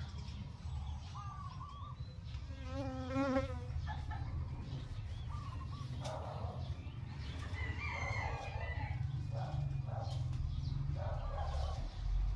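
A rooster crows once, a wavering call about three seconds in, among scattered chicken clucks and other short calls. A steady low rumble runs underneath.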